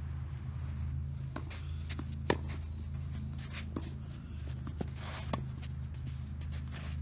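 Tennis ball being hit back and forth on a clay court: several sharp knocks of racquet strikes and bounces, the loudest about two seconds in, with scuffing footsteps on the clay and a short scrape around five seconds in, over a steady low hum.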